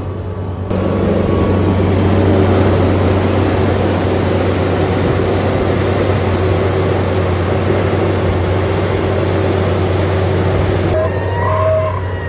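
An engine running steadily with a low hum and a dense mechanical rush, which gets louder about a second in and eases off near the end.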